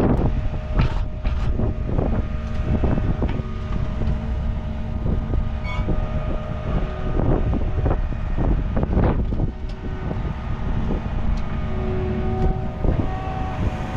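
A vehicle engine running steadily, with wind buffeting the microphone in repeated gusts.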